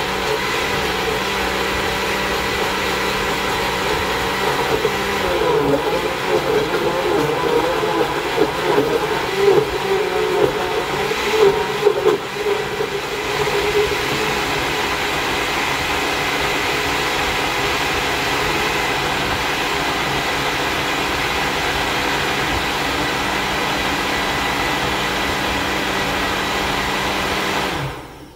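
Countertop blender running, churning frozen strawberries, ice cream and half-and-half into a milkshake. For several seconds it runs unevenly, then steadily, and it cuts off abruptly just before the end.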